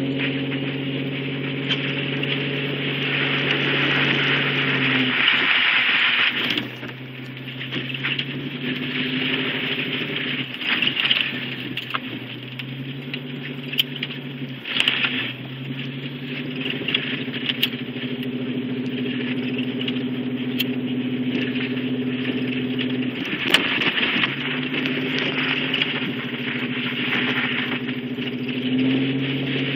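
Vehicle engine heard from inside the cab while driving a wet dirt trail; its note drops and picks up again several times, over a hiss of tyres on the wet surface, with a few sharp ticks in the second half.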